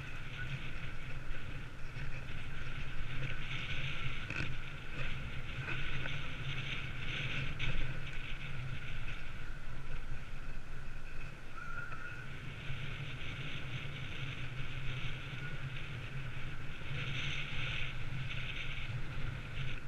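Steady wind and rolling noise picked up by a bicycle-mounted GoPro as the bike rides along a paved path: a low rumble with a hiss that swells and fades.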